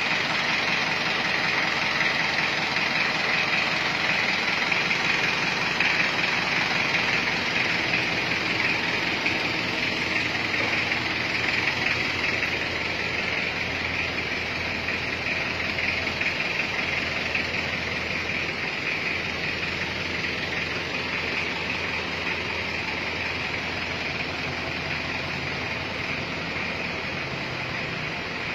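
Engine of an odong-odong mini tourist train, an Isuzu Panther engine, idling steadily with a constant hiss-like clatter.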